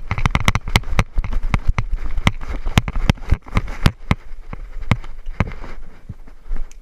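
Running footsteps with gear rattling: a rapid, irregular series of sharp clacks and knocks, several a second, easing off near the end.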